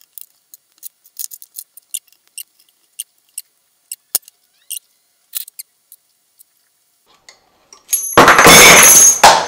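Metal washers clinking lightly, one at a time, as they are hung on a carabiner below a 3D-printed snap hook. About eight seconds in comes a sudden loud metal clatter lasting over a second: the 0.75 mm snap hook gives way and the stack of steel washers falls.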